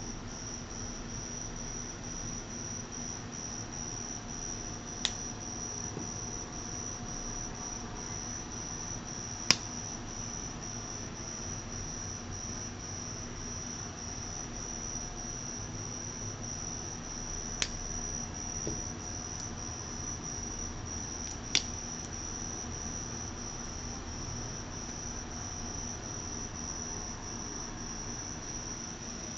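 Steady high-pitched insect trilling that runs on without a break, with four short sharp clicks spaced through it.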